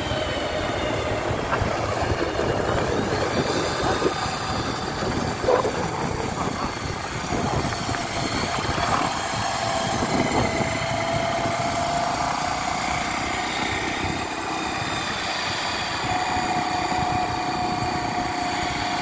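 A vehicle's engine running steadily while driving along a road, mixed with wind and road noise.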